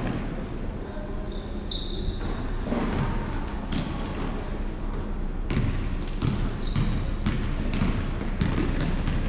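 Basketball game on a hardwood gym floor: sneakers squeaking in short, high chirps several times, with the ball bouncing and players' footsteps knocking on the boards.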